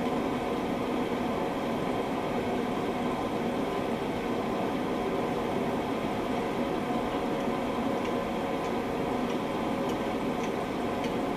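A steady hiss of background noise, with a few faint light clicks in the last few seconds as the hub-assembly bolts are worked in with a socket and extension.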